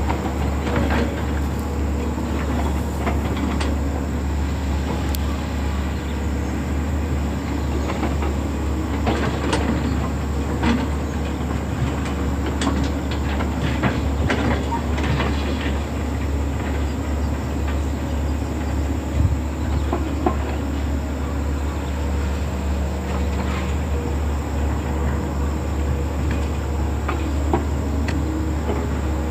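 Hydraulic excavator's diesel engine running steadily, with scattered metallic clanks and knocks.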